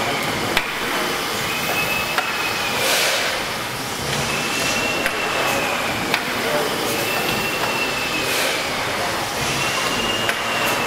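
Large steam mill engine, the Victoria and Alexandra, running slowly: a squealing tone rises and falls over about a second and a half and recurs every two to three seconds, with sharp knocks between and two short hissing rushes of steam.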